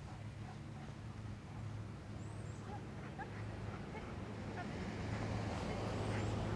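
Faint outdoor background noise: a steady low hum with a hiss that slowly swells toward the end, and a few faint short squeaks.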